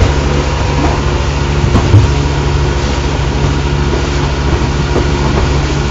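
The catamaran's inboard engine running steadily under way, a constant low drone heard inside the cabin, with one dull thump about two seconds in.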